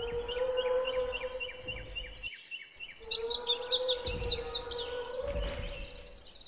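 Birds chirping and twittering in quick runs, loudest a few seconds in, over a steady pitched call held for about two seconds, twice, with a short break between.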